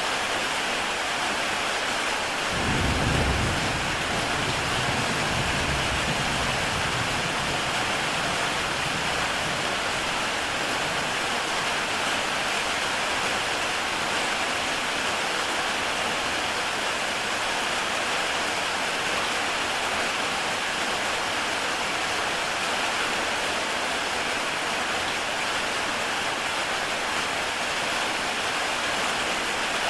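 Heavy rain falling steadily on a tile roof, an even hiss of drops. About two and a half seconds in, a low rumble of thunder rolls in and dies away over several seconds.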